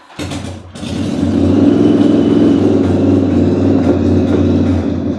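A motorcycle engine running loudly: it starts abruptly, builds up over the first second or so, then holds steady.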